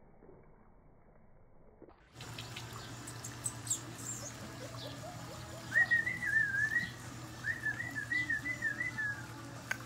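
Bouvier puppy whining: a high, wavering whine in two stretches of a second or more each, starting a little past halfway, over a steady low hum.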